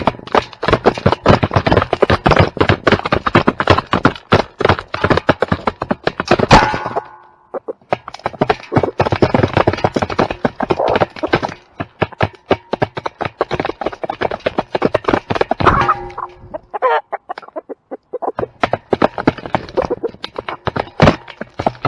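Chickens clucking over a dense run of rapid clicks and crunches, with a few short pitched calls. It breaks off briefly twice, about seven seconds in and again near eighteen.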